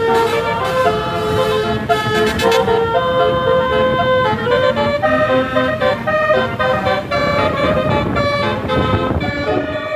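A 36-note Basuri telolet bus horn plays a fast melody of short, stepped notes, with the rumble of the moving bus underneath.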